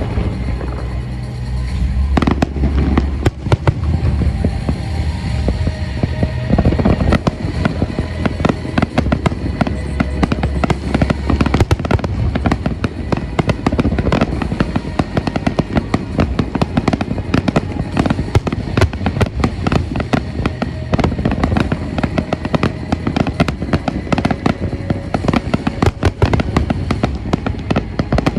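Fireworks display at full intensity: a continuous barrage of shells bursting, dense crackling and popping over low booms, with music playing underneath.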